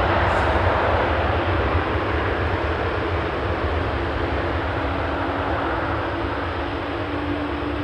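Jet engine noise from an Airbus A330-323X's Pratt & Whitney PW4000-series turbofans as the airliner moves away down the runway: a steady rushing roar over a low rumble, slowly fading, with a faint steady hum coming in about halfway.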